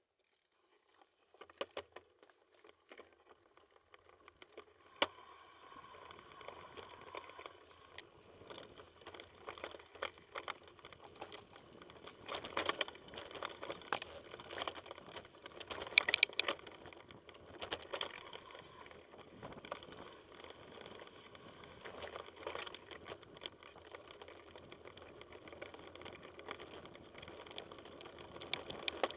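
Mountain bike being ridden over a rough dirt forest trail: constant rattling and clattering of the bike, with sharp knocks over bumps, the loudest cluster about halfway through.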